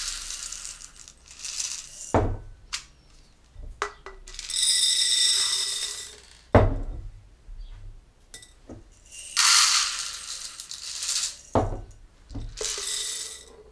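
Whole coffee beans rattling as they are poured from a glass mason jar into a plastic measuring cup and tipped into another glass jar, in several pours. Sharp knocks come between the pours, about three of them, as the cup and jars are set down on the wooden table.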